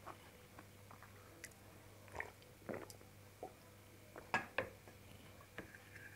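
Close-up eating sounds: mouth smacks, chewing and swallowing with fingers working through food on a steel plate, as separate short clicks and smacks, the loudest pair about four and a half seconds in.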